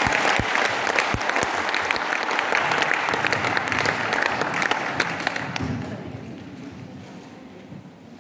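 Audience applauding, a dense patter of many hands clapping that dies away after about six seconds.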